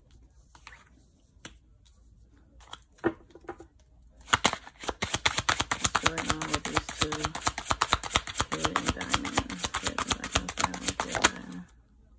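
A deck of tarot cards being shuffled by hand. A few soft handling clicks come first, then a fast run of card flicks from about four seconds in that stops shortly before the end.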